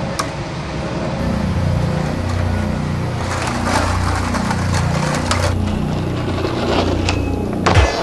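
Skateboard trucks grinding along a metal handrail, a steady rumbling scrape, then a sharp clack near the end as the board hits the ground.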